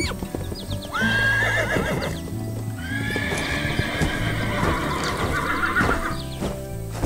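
A horse whinnying twice with a quavering pitch, the second call longer, over background music. Hoofbeats clip-clop near the end as the horse runs off.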